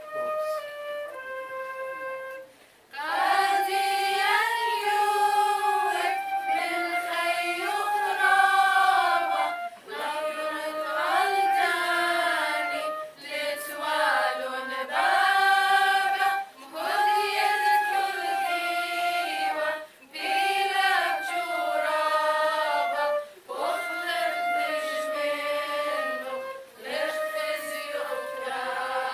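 Flute playing a short phrase on its own, then a women's choir singing a slow hymn with flute, in sung phrases separated by short breath pauses.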